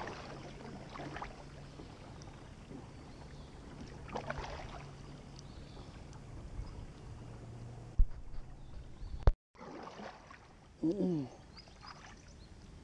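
Kayak paddle strokes swishing and dripping in calm water from a sit-on-top kayak. Two sharp knocks come about eight and nine seconds in, then a short pitched sound about two seconds later.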